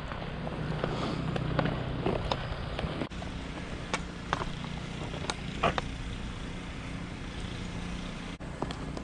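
Footsteps in snow, heard as scattered irregular clicks, over a steady low engine hum.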